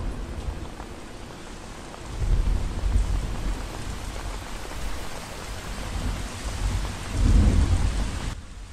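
Steady rain falling on a wet surface, with two loud low rumbles, about two seconds in and near the end. The rain cuts off abruptly just before the end.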